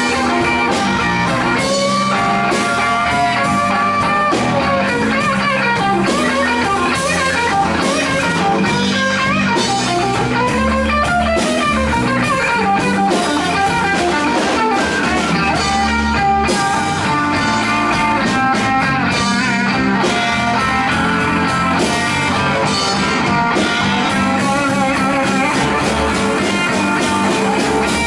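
Live blues band playing a slow blues: a Fender Stratocaster electric guitar takes a solo full of bent notes over electric bass and drum kit, with no singing.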